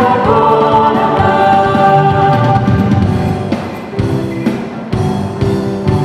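A vocal group singing a Polish Christmas carol with musical accompaniment, with a steady beat in the second half.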